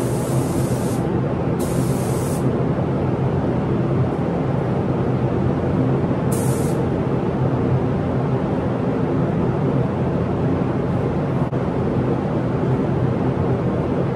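Spray gun hissing in short bursts as the painter triggers it to lay clear coat: a burst in the first second, another about a second and a half in, and a brief one about six seconds in. Behind it, a paint booth's ventilation runs as a steady loud rush with a low hum.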